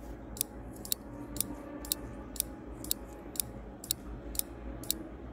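Quiz countdown timer ticking: sharp, evenly spaced clock-like ticks, about two a second.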